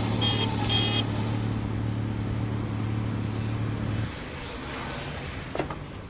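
Car engine running steadily, cutting off about four seconds in. Two short high beeps come in the first second, and a few light knocks come near the end.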